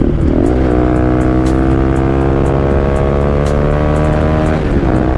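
Bajaj Pulsar RS200's single-cylinder engine through a loud exhaust, pulling steadily under load with its pitch rising slowly. The note settles about half a second in and eases off near the end.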